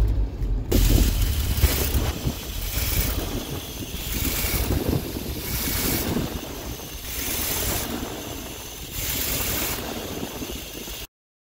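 1974 Chevy C30 one-ton wrecker's engine running. A rev eases off in the first second, then it settles to a steady run with wind on the microphone and a hiss that swells and fades about once a second. The sound cuts off abruptly near the end.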